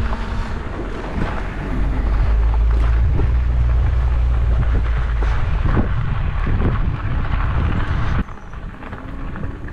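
Wind buffeting the microphone while riding a bicycle: a loud, steady low rumble that drops away abruptly about eight seconds in.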